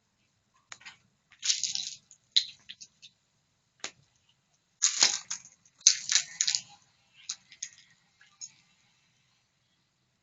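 Campfire crackling, with sharp pops and irregular bursts of crackle separated by short quiet gaps; the densest crackling comes about five to six seconds in.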